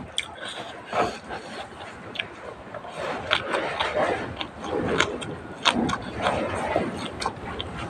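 A person chewing and crunching food close to the microphone, with irregular sharp clicks and crunches that get louder and busier around the middle.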